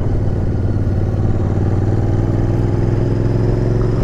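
Royal Enfield Interceptor 650's parallel-twin engine running steadily under way, its note rising gently, with tyres hissing on a wet road.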